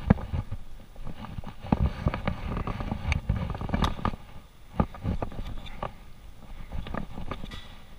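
Chef's knife trimming fat from New York strip steaks on a plastic cutting board: irregular knocks and taps of the blade and meat against the board, with handling noise of the meat.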